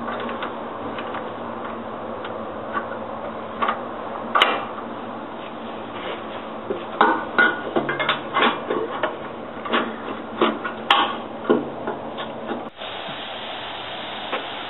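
Scattered metallic clicks and knocks of steel turret parts and tools being handled, most of them in a cluster from about halfway through, over a steady hum.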